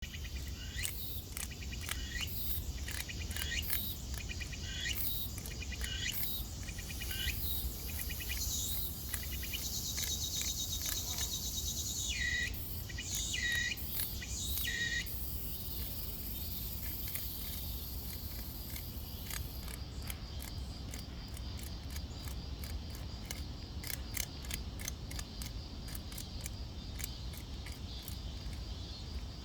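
Cicada making repeated harsh buzzing calls in short bursts, with a steady high buzz for several seconds in the middle, then rapid irregular clicking: the distress calls of a cicada struggling in a bee's grip.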